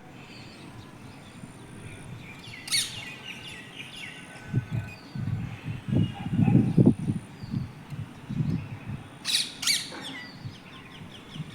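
Parrot calling: a sharp shrill screech about three seconds in and two more close together near the end, with lighter chirps in between. Low bumps and rumbles through the middle and later part are the loudest sound.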